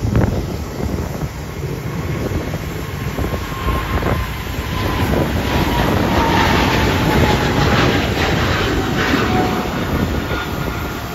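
Jet airliner's engines passing, a steady rumble with a thin whine that slides slowly down in pitch and grows louder midway. Wind buffets the microphone.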